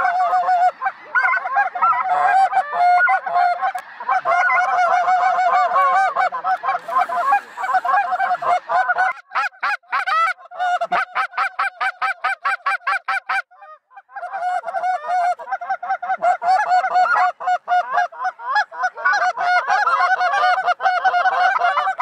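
A huge flock of snow geese calling overhead: a dense, continuous chorus of many overlapping high, short yelping calls. About two thirds of the way through it drops out briefly, then the chorus resumes.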